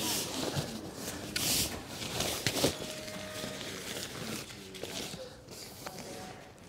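A rolled-up Blackwolf Hexatherm self-inflating mat being pushed into its fabric carry bag, then the bag hauled up and shaken down over it. Fabric rustles and scrapes in a few sharp bursts, loudest in the first three seconds, then quieter rubbing.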